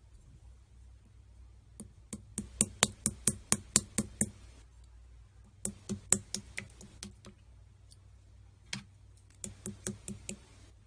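Three runs of quick, sharp clicks at about four to five a second, with a single click between the second and third runs.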